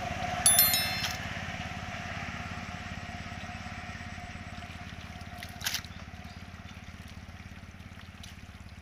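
A small engine running steadily with a fast, low chug, fading slowly. Hands slosh and slap through wet mud, with one louder wet slap a little past the middle. A brief bright electronic chime sounds near the start.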